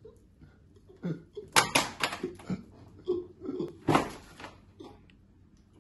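A person crying: short, broken sobs with two sharp gasping breaths, the loudest about one and a half seconds and four seconds in.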